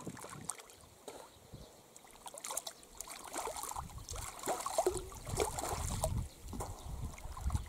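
Water splashing and sloshing around a person standing chest-deep and working a long wooden pole in the water. It is quieter for the first few seconds, then busier splashing about halfway through.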